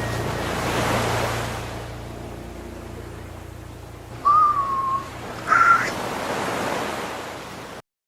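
Sea waves washing in, with two whistling exhalations of a haenyeo (Korean female diver) surfacing, the sumbi-sori: a longer whistle that falls slightly, about four seconds in, then a shorter, higher one. The sound cuts off suddenly near the end.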